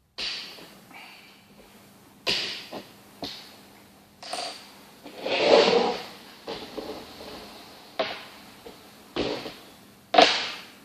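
Makruk pieces being set down and moved on a board: about ten irregular sharp knocks, with a longer, louder scraping knock near the middle.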